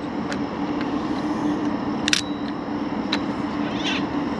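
Steady low mechanical hum with a few sharp, irregular clicks over it.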